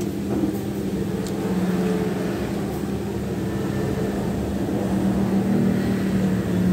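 Steady low droning hum whose pitch shifts slowly, with a few faint clinks of cutlery against a plate.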